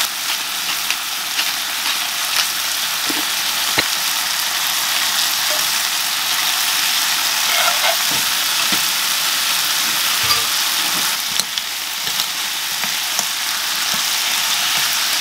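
Vongole pasta sauce of clams, shrimp and onion sizzling steadily in a frying pan. Scattered clicks and taps come from stirring with a utensil.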